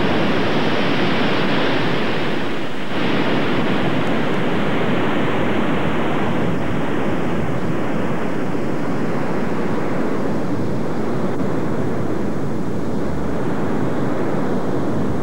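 Ocean surf breaking and washing in: a loud, steady rush of crashing waves, with a brief break about three seconds in.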